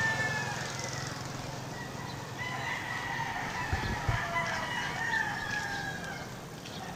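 Rooster crowing: a long, drawn-out crow about two and a half seconds in, sliding slightly down at its end, after the tail of an earlier crow at the start.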